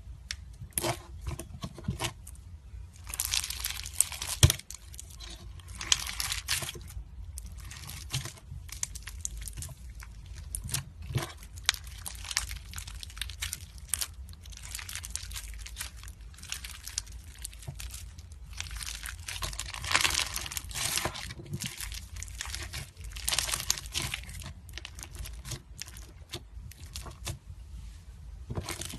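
Green slime being poked and squeezed by hand, crackling and popping irregularly, with louder spells of crackling every several seconds.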